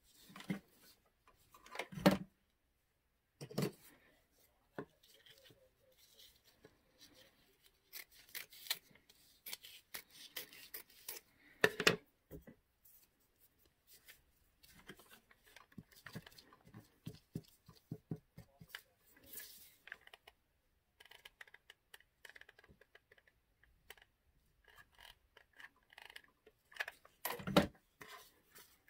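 Scissors snipping and handling of fabric, with the cloth rustling as it is folded and smoothed flat on a wooden board. A few sharp knocks on the board stand out: one about two seconds in, one midway and one near the end.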